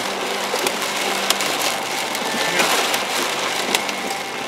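Rain and hail pelting a vehicle's roof and windshield, heard from inside the cab: a steady hiss with scattered sharp knocks from larger hailstones striking.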